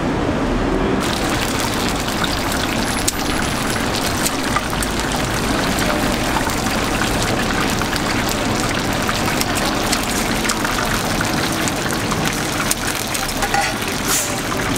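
Thick tteokbokki sauce simmering in a large flat pan, a steady hiss of many small bubbles popping. A few louder clicks come near the end.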